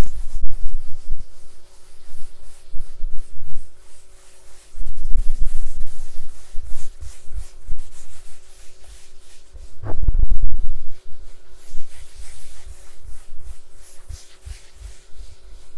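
Fingers rubbing and scratching on a case close to the microphone: an irregular run of scratchy strokes with muffled low bumps, densest about ten seconds in.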